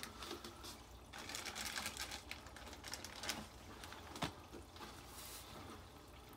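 Faint trickling and splashing of water from an aquarium filter, with scattered small clicks.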